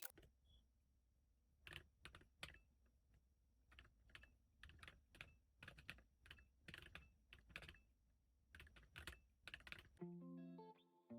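Keystrokes on a custom mechanical keyboard with Akko Creamy Blue Pro V3 switches and PBT keycaps, pressed singly and in short bursts at an uneven pace and heard faintly. Guitar music comes in near the end.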